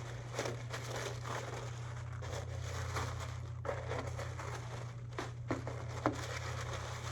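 Paper packaging crinkling and rustling as a sticker seal is peeled and a gift box is opened, with a few short sharp clicks, over a steady low hum.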